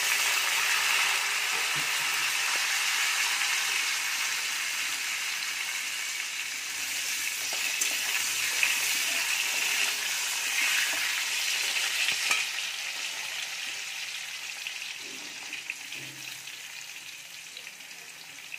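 Boiled potato pieces sizzling as they fry in hot oil in a metal kadai, turned now and then with a metal spatula that clicks against the pan. The sizzle is loudest as the potatoes go in and dies down gradually over the last several seconds.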